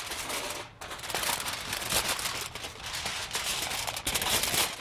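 Aluminum foil crinkling as hands fold and crimp it shut into a baking pouch.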